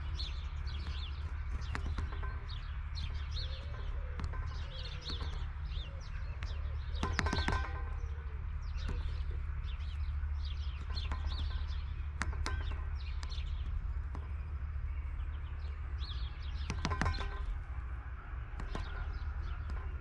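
Small birds chirping in frequent short calls, with a few sharp knocks about seven, twelve and seventeen seconds in, over a steady low rumble.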